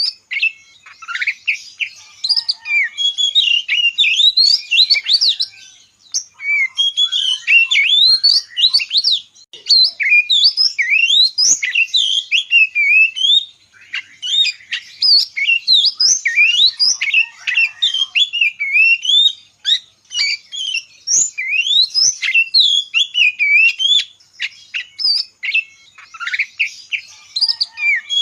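Bird chirping and twittering: rapid high chirps and whistled notes sliding up and down, in runs of a few seconds with short pauses between them.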